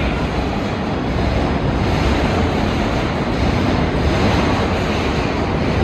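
New York City Subway R211 train rolling into the station as it arrives, a loud steady rumble of wheels and running gear.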